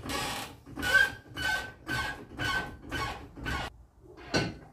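Floor jack being pumped with its long handle to lift the front of a car: a rhythmic squeaky stroke about twice a second, seven in a row, then one more near the end.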